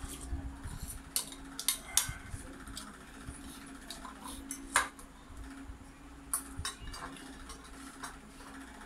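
Spoon and dishes clinking several times during eating, in sharp separate clicks, the loudest about two seconds and five seconds in.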